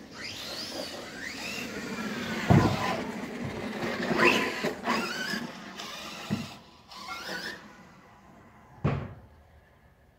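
Electric RC car motor whining up and down with the throttle, with a few sharp thuds of the car hitting the ground or bumping into things; the whine fades over the second half.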